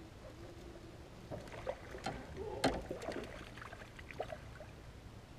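Water splashing and slapping close beside a kayak as a hooked pickerel thrashes at the surface while being reeled in. The splashes come in an irregular run, with one sharp, loud splash about two and a half seconds in.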